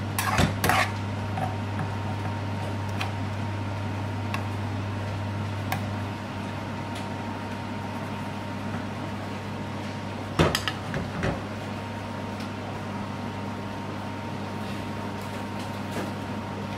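Metal spoon knocking and scraping against a frying pan of thick spinach curry, a couple of times at the start and again about ten seconds in, over a steady low hum.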